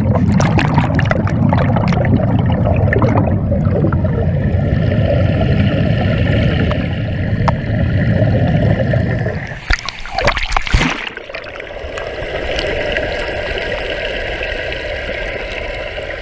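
Churning pool water and bubbles heard underwater through an action-camera housing: a heavy, muffled rumble full of small bubbly clicks, broken about ten seconds in by a short cluster of knocks, after which the water sound goes on lighter and more even.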